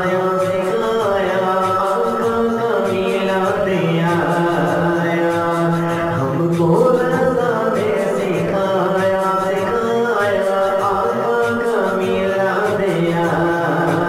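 Devotional background vocal music: layered chanted singing over a steady low hum.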